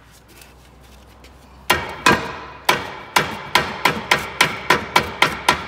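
Steel hammer striking the brake caliper at a Tesla Model S rear wheel, about a dozen sharp, ringing metal blows that come faster, up to about three a second, beginning about a second and a half in. The part is stuck fast, and the caliper is suspected of being what holds it.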